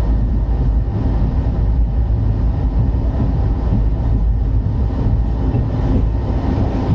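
Indian Railways express train running at speed: the coach's steady, loud low rumble on the rails.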